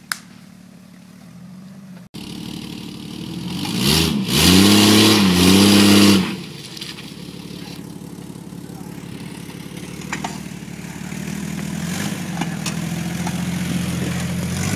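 1993 Jeep Cherokee's 4.0L straight-six engine revving hard for about two seconds, rising, dipping and rising again over a loud rush of noise, then running steadily at low revs and slowly building as it crawls through mud, with a few sharp knocks.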